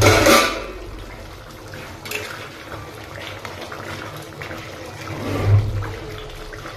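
Mutton curry bubbling in a steel kadai, stirred with a spoon that scrapes the pan. A brief loud rush opens it, and a low thump comes about five and a half seconds in.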